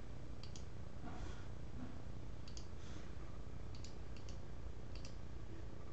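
A handful of light clicks from a computer mouse and keyboard, some in quick pairs, scattered over several seconds as a list is copied and pasted into a spreadsheet, over a steady low hum.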